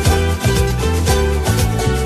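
Upbeat background music with a steady beat and plucked strings.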